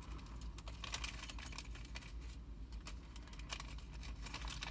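Small metal hardware parts clinking and rattling as they are handled, a scattered series of light clicks.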